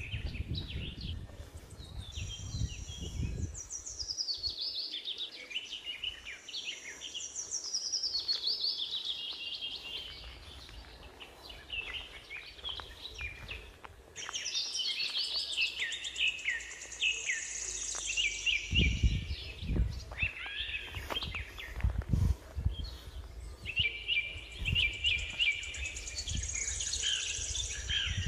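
Small songbirds singing in repeated high, trilling phrases that slide downward in pitch, with pauses between bursts. Short low rumbles come in at the start and again about two-thirds of the way through.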